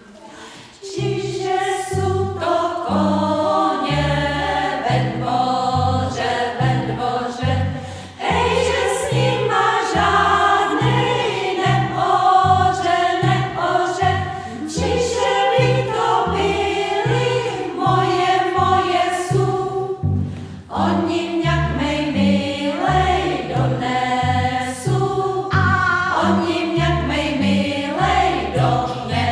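Women's choir singing a Czech folk song, accompanied by a plucked double bass playing short low notes on a steady beat; the music starts about a second in.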